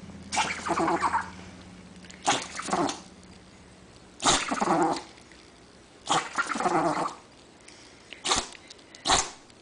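A dog sneezing again and again: four long, partly voiced sneezes about two seconds apart, then two short, sharp ones near the end.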